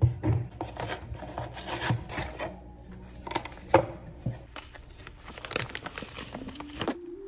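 Kitchen handling sounds: a bottle knocks down onto the counter, then paper packaging rustles and crinkles. Dry muffin mix is shaken out of a paper bag into a mixing bowl, with scattered clicks and knocks throughout.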